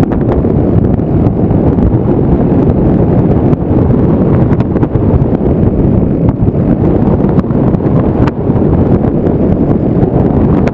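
Wind rushing over the onboard camera's microphone of an FPV model plane in flight: a loud, steady, low rumble with a faint, steady high-pitched whine over it.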